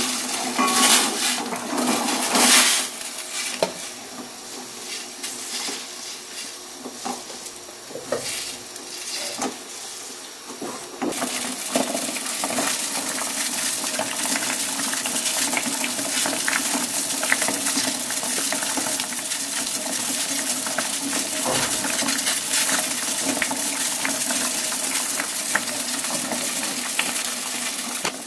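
Sweet corn kernels clattering into a stainless steel pot of boiled water, then a slotted metal spoon clinking and scraping against the pot as the kernels are stirred. From about 11 seconds in, a steady hiss with fine ticking as the pot of water heats.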